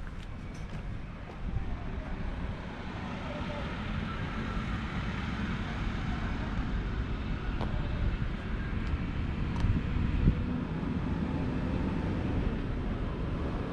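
Steady low rumble of a vehicle, growing louder over the first few seconds and then holding, with wind on the microphone.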